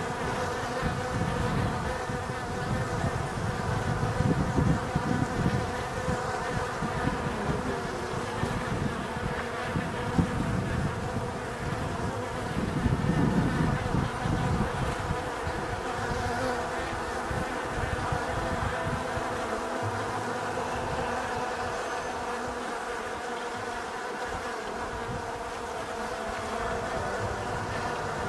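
Honey bees buzzing at a hive entrance: a steady hum of many wings, several tones layered together. A low rumble sits under it in the first half and dies away after about fifteen seconds.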